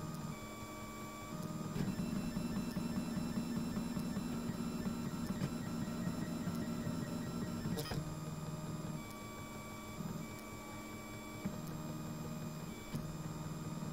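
Printrbot Simple 3D printer's stepper motors whining as the print head lays down a part, the pitch stepping to a new note every second or two with each move. It is louder from about a second and a half in until about eight seconds in, where a single sharp click sounds.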